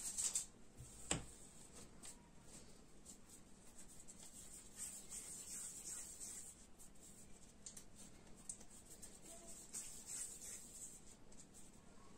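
Faint, soft rubbing of hands rolling a ball of yeast dough between the palms, with a couple of light knocks in the first second or so as dough balls are set down on baking paper on a metal tray.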